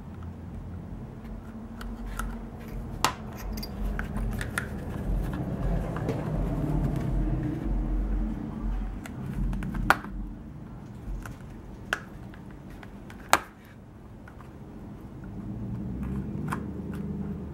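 Handling noise from a tooled leather holster being worked in the hands while saddle stitching is picked out of its strap with a pointed tool: leather rubbing and scraping, with four sharp clicks spread through the middle.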